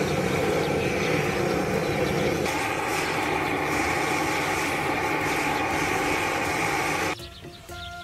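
Hose-fed gas blowtorch running steadily as it blasts flame into a stack of fruitwood logs to light the fire. The sound cuts off abruptly near the end, and quiet music begins.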